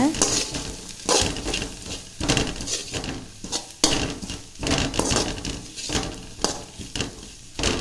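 Metal spatula stirring and tossing chopped spring onion greens in a metal kadai, with repeated scrapes and clinks against the pan about once a second.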